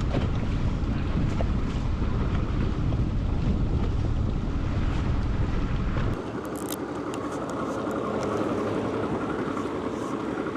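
Wind buffeting the microphone on an open boat, a heavy ragged rumble that cuts off abruptly about six seconds in. It leaves a steadier, quieter rush of wind and water with a few faint clicks.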